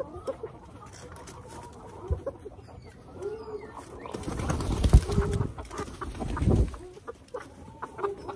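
Hens clucking softly as they crowd a feed bowl, short low calls throughout. From about four to seven seconds in, louder rustling and thumps from birds moving close by.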